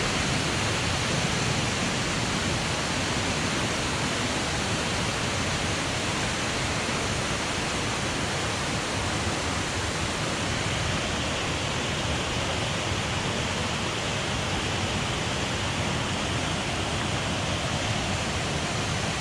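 Waterfall on a beck running full after heavy rain: a steady, unbroken rush of falling water.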